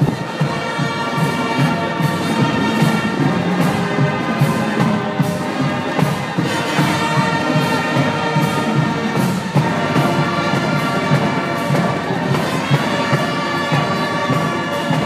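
Marching band playing a tune on brass instruments, trombones, trumpets and sousaphones, with drums keeping a steady beat.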